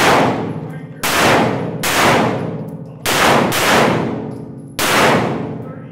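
Pistol fired in a string of single shots, five within about four seconds, two of them close together near the middle. Each shot rings on in a long echo off the walls of the indoor range.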